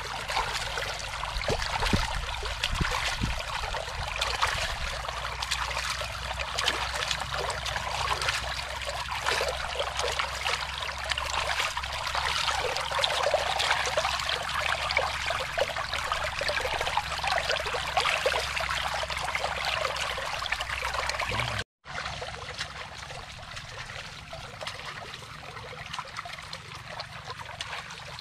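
Shallow water trickling and flowing steadily in a paddy-field ditch, with a few soft low splashes of hands working in the water in the first few seconds. After a brief break about three-quarters of the way through, the trickling goes on more quietly.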